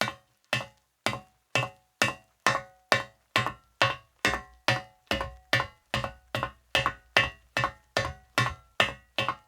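A man walking at a steady pace in leather-soled shoes on a metal surface, about two footsteps a second. Each step is a sharp heel strike with a short metallic ring.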